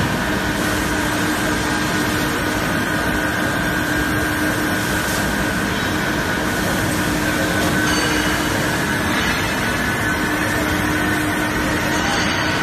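Forging-line machinery running: a loud, steady mechanical noise with a constant low hum and a higher steady whine, with no distinct strikes.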